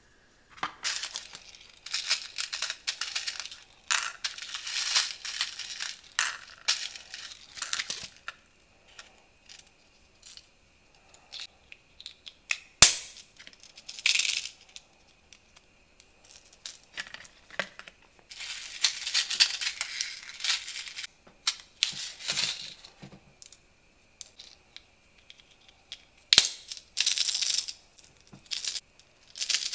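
Small hard plastic toy parts and packaging being handled, crinkling and clicking in irregular bursts with pauses between, with one sharp click about thirteen seconds in.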